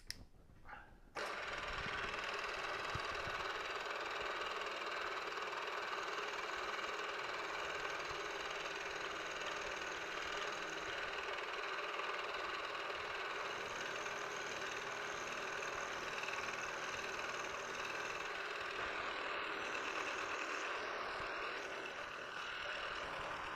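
Milling machine running a 3/16-inch end mill down into the centre of the V to cut a shallow grinding relief. The machine sound starts abruptly about a second in and then holds steady.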